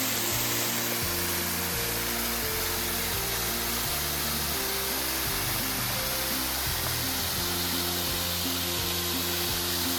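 Background music with low held notes changing about once a second, over a steady rushing noise.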